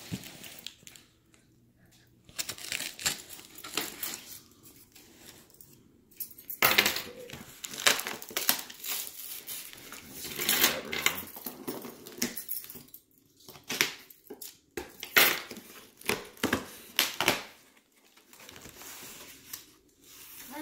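Packing tape on a cardboard box being slit with a small key-ring knife and torn open, with the cardboard flaps scraping and rustling in irregular strokes separated by short pauses.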